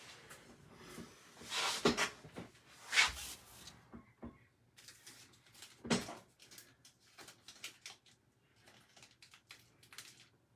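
Handling noises at a desk: a few rustling swishes, a knock about six seconds in, then a run of light clicks.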